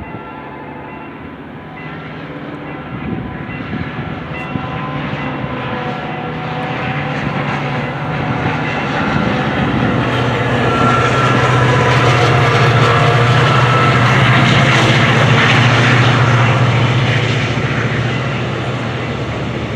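A diesel locomotive hauling a freight train comes up to the level crossing, its engine drone swelling to a peak about two thirds of the way through and then easing as it passes. The crossing's warning bell rings repeatedly in the first few seconds.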